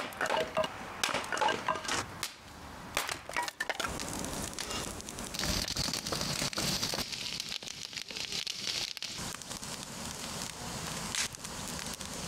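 Axe splitting firewood on a wooden chopping block, several sharp cracks in the first few seconds, then a wood fire burning with steady crackling.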